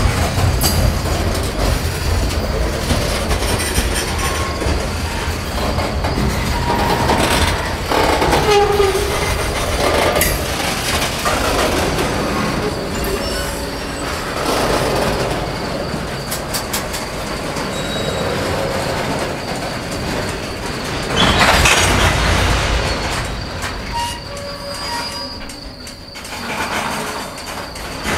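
Covered hopper cars of a Norfolk Southern freight train rolling past, wheels rumbling and clattering over the rails, with a steady high-pitched squeal above. The sound swells about 21 seconds in and eases off near the end.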